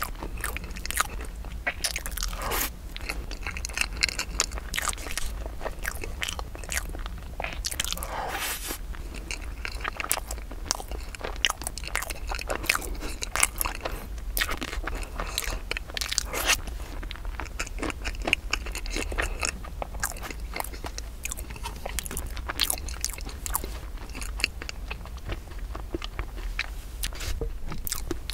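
Close-miked chewing of a crumbly rice cake with a cream filling: a dense run of irregular wet mouth clicks and soft crunches.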